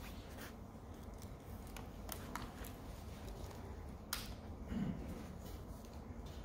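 Quiet room tone with scattered small clicks and handling noises, the sharpest knock about four seconds in as the podium's gooseneck microphone is taken hold of and adjusted; a brief low sound follows about a second later.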